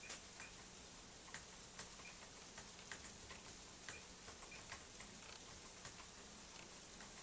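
Faint, light clicks at irregular intervals over a steady hiss, from the StarWriter Pro 5000 typewriter computer being operated.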